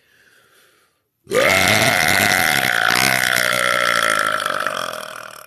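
A woman's long, loud, deliberate burp. It starts about a second in, lasts about four seconds and fades off near the end.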